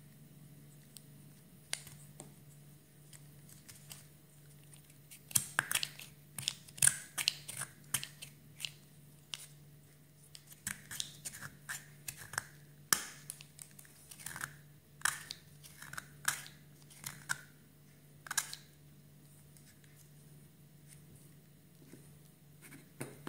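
Turquoise plastic plunger cookie cutter being assembled by hand: an irregular run of sharp plastic clicks and snaps as the spring-loaded plunger is worked into place, bunched in the middle and thinning out near the end.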